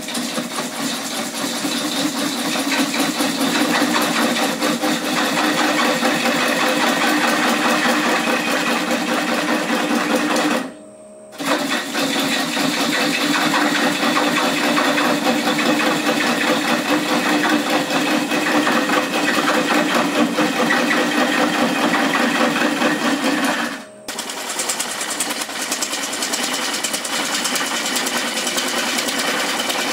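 A turning gouge cutting into a large wooden bowl spinning on a Oneway 2436 lathe, a steady cutting noise over the machine's hum. It breaks off briefly twice, about a third of the way through and again near the end, and carries on a little changed after the second break.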